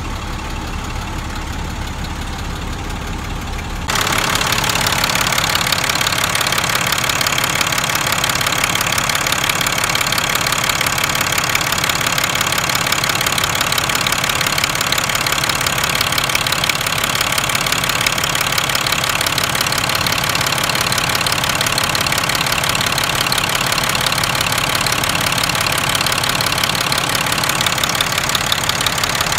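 International DT466 turbo diesel idling with its valve cover off. At first it is heard further off with a low steady beat; about four seconds in it becomes much louder, a dense rapid clatter from close over the open injectors and valvetrain.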